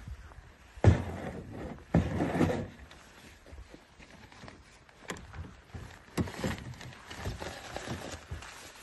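Gear being loaded into plastic kayaks: sharp knocks and thumps of a hard case and a dry bag handled against the kayak hulls, the loudest about one and two seconds in, with lighter knocks later.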